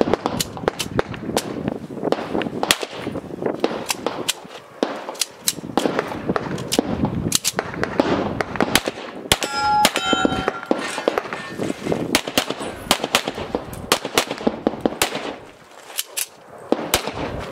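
Handgun shots fired in quick pairs and strings with short gaps, each crack sharp and metallic-sounding. About ten seconds in, a hit steel target rings briefly.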